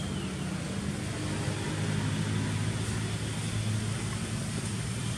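A steady low motor hum over a constant wash of outdoor noise, with one short high falling chirp right at the start.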